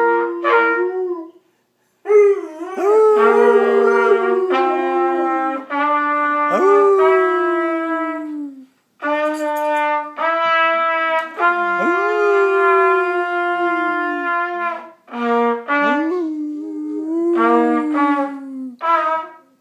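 A trumpet-like brass instrument playing a series of held notes, stepping from pitch to pitch with short breaks between them. A greyhound howls along with it near the start.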